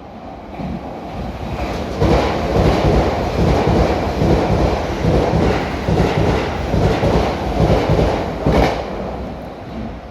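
Keisei Evening Liner express train passing through the station without stopping. Its noise builds over the first couple of seconds, then comes a loud run of wheels clacking over rail joints for about seven seconds, fading near the end.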